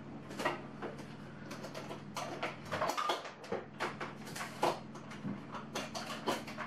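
Irregular light clicks, taps and rattles of hands handling kitchen gear at the counter as an electric hand mixer's cord and beaters are set up, over a faint steady hum.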